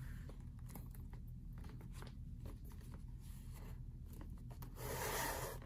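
Leather lace and a metal lacing needle being worked through a baseball glove's lace holes: faint scattered clicks of handling, then, near the end, a longer scraping swish as the lace is drawn through the leather.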